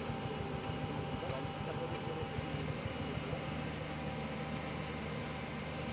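Tractor engine running steadily under load, a constant low drone, as it pulls a strip-till implement working a band of soil.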